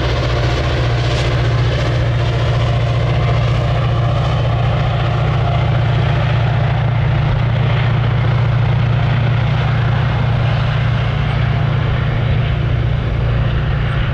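Metra diesel locomotive's engine running under load with a steady deep drone as the train passes, with the rumble of bilevel passenger cars rolling by on the rails.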